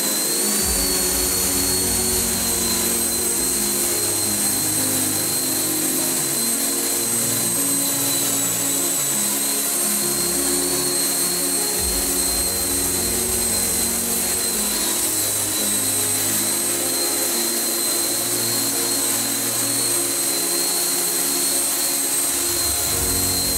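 Twin 130 mm Schübeler electric ducted fans running at hover power under a large RC F-35B model, a steady high-pitched whine, with background music underneath.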